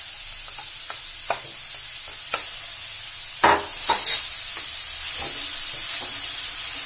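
Wet grated carrots sizzling steadily in hot ghee in a kadhai while a wooden spatula scrapes and stirs them around the pan, with a few louder knocks about halfway through. The sizzle comes from the carrots' unsqueezed water cooking off as they are sautéed.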